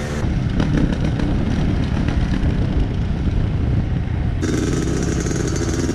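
Trail motorcycle engines running, rough and loud, with an abrupt change about four seconds in to a steadier engine note.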